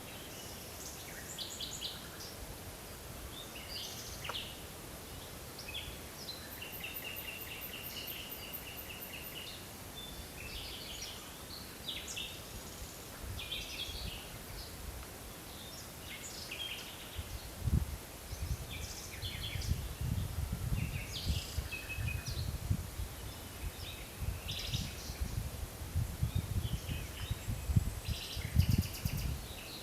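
Several forest birds calling and singing: short chirps, whistles and trills, one with a rapid trill a third of the way in. From a little over halfway, an uneven low rumble in gusts joins in and becomes the loudest sound.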